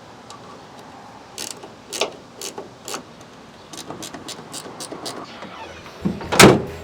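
A few plastic knocks as the truck's tail light housing is seated, then a ratchet wrench clicking about five times a second while a bolt is run in, and one loud thump near the end.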